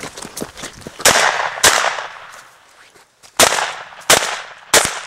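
Shotgun firing slugs: five loud shots, each with a ringing tail, the first two about half a second apart, then after a pause three more in quick succession. Faint clicks come before the first shot.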